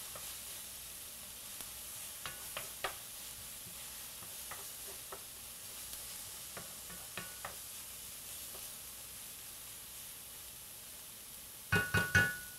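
Diced onions sizzling steadily in a preheated nonstick skillet as they sweat and begin to colour, stirred with a wooden spoon that scrapes and taps the pan now and then. Near the end a few louder knocks on the pan ring briefly.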